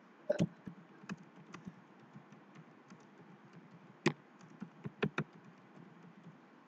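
Typing on a computer keyboard: a run of irregular key clicks, with a few louder keystrokes about half a second in, at about four seconds, and a pair around five seconds.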